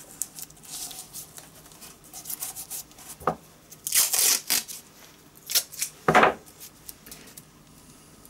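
Masking tape tearing and crinkling in irregular rasps as it is handled and pressed onto a model carriage body, loudest about four seconds in, with another rasp about six seconds in.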